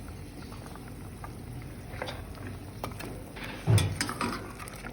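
Kitchen cooking sounds: a steady low hiss, then scattered clinks and knocks of utensils and cookware, with a heavy thump a little before the end.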